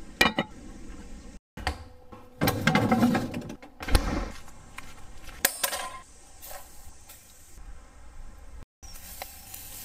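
Ceramic clinks and knocks as a painted ceramic lid is lifted off a black clay pot, followed by further clinks and bumps of cookware being handled. The loudest is a sharp knock about four seconds in.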